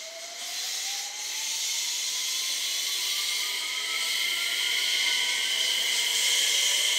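JR West 227 series electric multiple unit accelerating away: a traction-motor whine rises steadily in pitch over a steady hiss of the train's running noise, growing louder during the first second or so.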